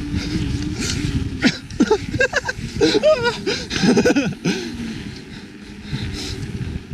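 Mountain bike rolling on the trail with a steady hum, then riders whooping and shouting from about a second and a half in.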